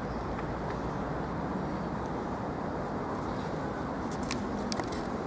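Steady low rumble of vehicle noise, with a few faint high ticks about four to five seconds in.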